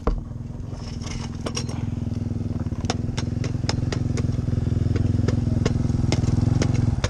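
Husqvarna supermoto motorcycle engine running steadily at idle, with a few light clicks over it; the engine is cut and stops abruptly at the very end.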